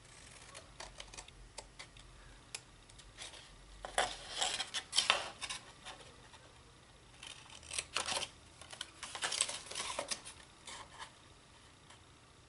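Small craft scissors snipping through designer paper, in two runs of quick snips about four seconds in and again about eight seconds in, with the paper handled between cuts.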